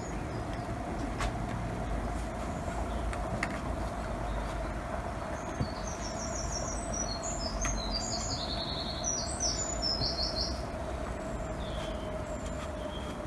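A small bird singing a quick run of high chirps about halfway through, over a steady outdoor background with a faint constant hum.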